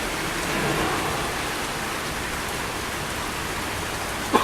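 Heavy rain pouring down steadily, a dense even hiss of rain falling on the ground and on standing floodwater.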